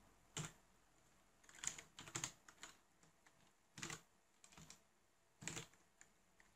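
Computer keyboard typing, faint. The keys are tapped in short, irregular runs with pauses between them.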